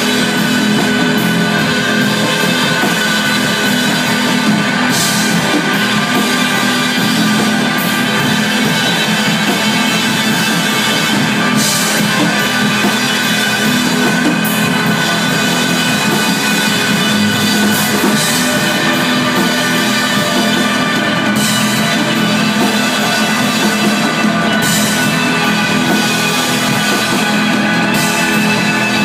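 Live post-rock band playing loud and sustained: electric guitars and bass over a drum kit, with cymbal crashes every few seconds.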